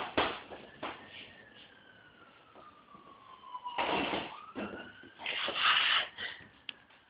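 A siren wailing faintly in the background, its pitch falling slowly and then rising again. A few sharp knocks come near the start, and two louder noisy bursts come about four and six seconds in.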